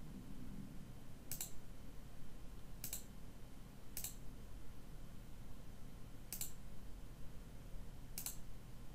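Computer mouse button clicks, five single clicks spaced one to two seconds apart, over a faint low hum.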